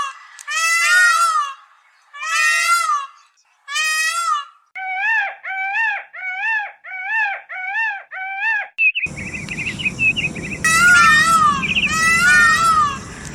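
Indian peafowl calling: loud, wailing, cat-like calls repeated about once a second, then a quick run of about eight shorter calls. About nine seconds in, a steady background hiss comes in with a brief trill, and then the long calls resume.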